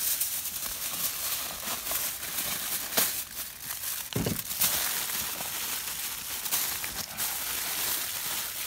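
Aluminium foil crinkling and crumpling as it is folded and pressed by hand around a wrapped joint of meat.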